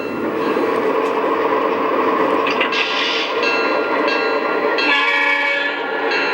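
Lionel model train's electronic sound effects: railroad running noise with held, steady tones over it, the tones changing about five seconds in.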